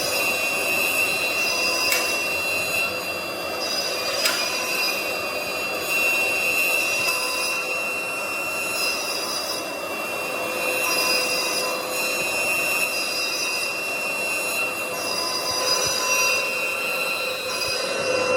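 Woodworking CNC router's high-speed spindle running with a steady high-pitched whine while machining wood, the sound swelling and easing every few seconds as the cut changes. Two sharp clicks cut in about two and four seconds in.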